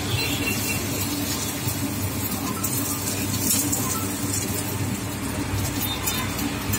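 Paratha frying in oil on a large flat tawa griddle, sizzling steadily while a metal ladle and spatula press and scrape on it, over a constant low background rumble.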